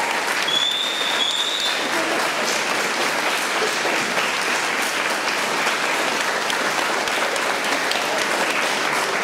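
Audience applauding steadily, with a high whistle that rises and then holds for about a second and a half near the start.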